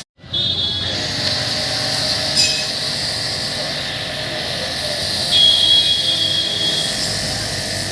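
High-pressure washer jet spraying steadily, a continuous hiss with a thin high whine. About five seconds in it gets louder and a higher whistling tone joins it for a second or two.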